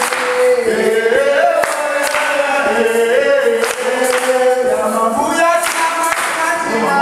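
A group of voices singing a chant together, with hand claps keeping time.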